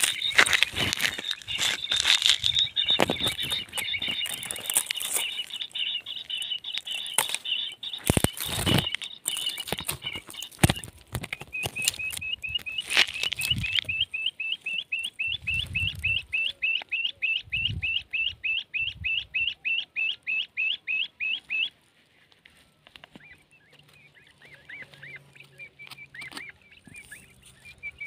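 Quail calls from a battery-powered bird caller used as a lure: a fast run of high chirps, about four a second, that cuts off suddenly a little over twenty seconds in, with fainter calling afterwards. In the first half, sharp knocks and rattles of birds struggling in the wire trap sound over the calling.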